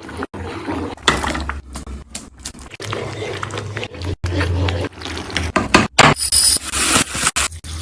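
Kitchen cooking sounds, mostly scraping, in short pieces that start and stop abruptly.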